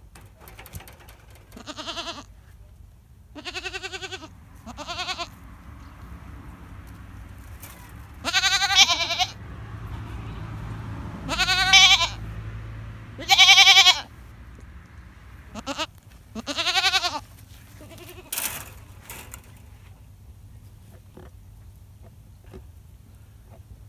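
Goats bleating, about eight separate bleats, the loudest three in the middle.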